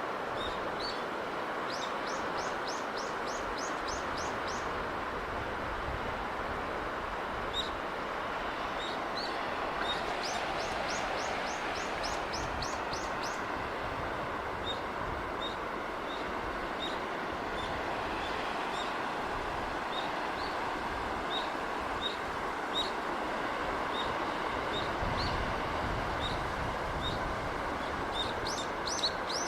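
Steady wash of sea breeze and surf, with small birds calling over it: short high chirps repeating about every half second through the middle, and three quick trills of about eight fast descending notes, near the start, about ten seconds in, and at the end.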